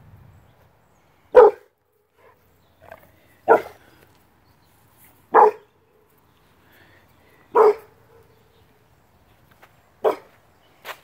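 Six-month-old Rottweiler puppy barking: five single, loud barks about two seconds apart, then a fainter one near the end.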